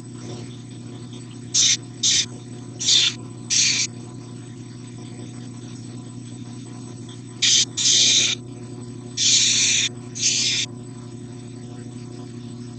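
Belt grinder with a 220-grit aluminum oxide belt running with a steady hum, with short, loud hissing bursts, mostly in pairs, as a knife blade is drawn across the belt, about eight passes in all, putting the initial edge on the blade.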